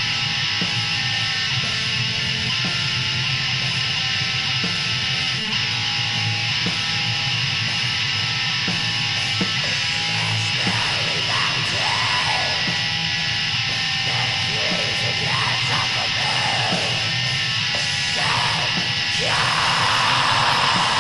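Black metal song: a dense, steady wall of distorted electric guitars, with harsh screamed vocals coming in about halfway through.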